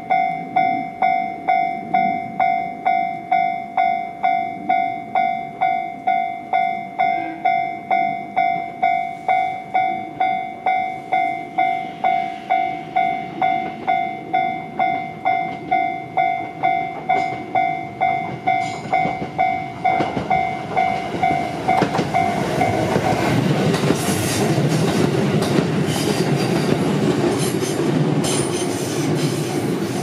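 Japanese level-crossing warning bell ringing steadily at about two strikes a second. From about 20 seconds in, an approaching electric train grows louder and drowns out the bell, with clicks from its wheels.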